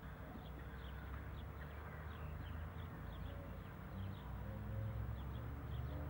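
Small birds chirping over and over, short high falling notes, over a steady low rumble.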